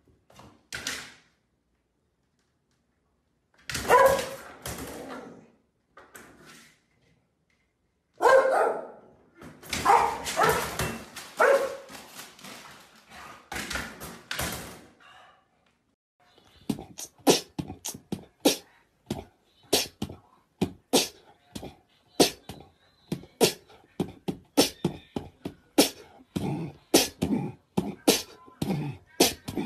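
A dog barking and whining in loud separate calls. Later comes a long run of short, even taps, about two to three a second.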